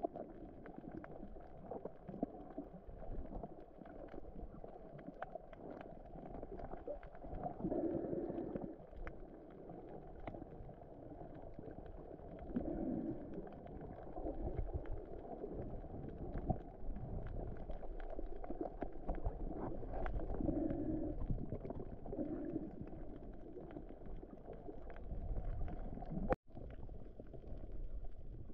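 Muffled underwater noise picked up by a submerged camera: a low, steady water rush with scattered faint clicks and crackles and a few brief swells. It cuts out sharply for a moment near the end.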